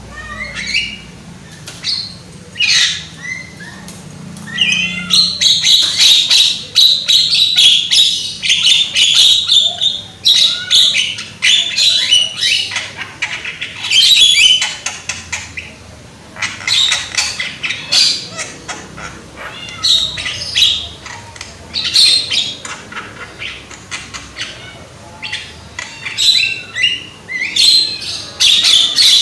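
Javan myna (jalak kebo) calling loudly: harsh squawking and chattering calls in irregular bursts, with a dense run of calls from about a fifth to a third of the way in and further bursts near the end.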